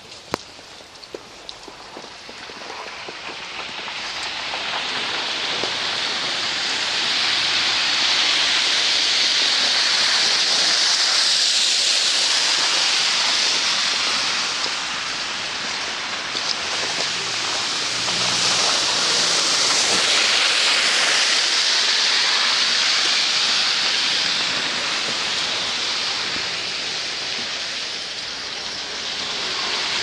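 Car tyres hissing through wet slush on the road as vehicles pass, a long rushing hiss that swells twice and fades.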